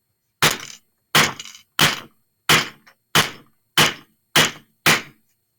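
Hammer striking a 16 gauge wire jump ring on a steel bench block, eight sharp blows about two-thirds of a second apart, each with a short metallic ring.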